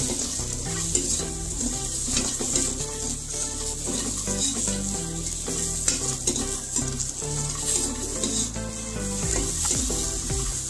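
Chopped onion, garlic, tomato and green chilli sizzling as they roast in a non-stick kadhai, with a steel spoon stirring and scraping them around the pan in quick strokes.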